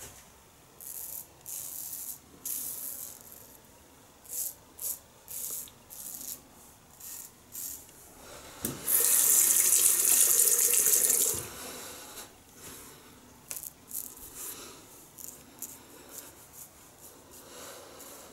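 Short scraping strokes of a 1930s Gillette "New" long-comb double-edge safety razor cutting stubble through shaving cream. About nine seconds in, a tap runs into a sink for two to three seconds. The razor strokes then resume.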